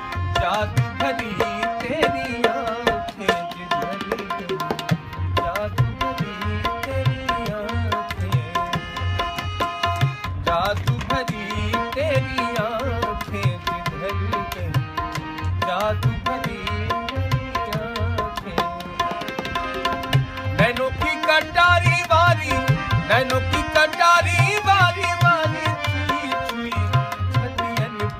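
Instrumental interlude of a folk song: a harmonium plays the melody over held notes while a tabla keeps a steady, busy rhythm, its bass drum swooping up and down in pitch.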